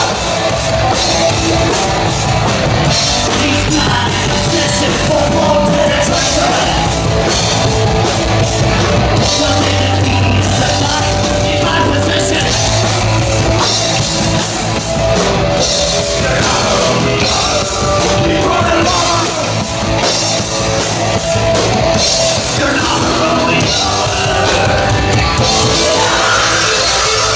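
Punk/metal band playing live and loud: distorted guitars, bass and drum kit, with shouted vocals.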